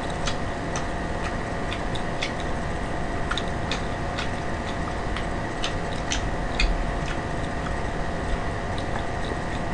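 Irregular small clicks and ticks from eating with chopsticks and chewing fried chicken, over a steady background hum, with a slightly louder click about six seconds in.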